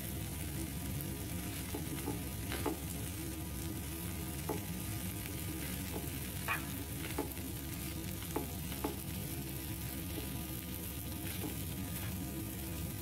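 Watermelon rind and sardines sizzling in a frying pan as a spatula stirs them, with a steady frying hiss and several light knocks of the spatula against the pan.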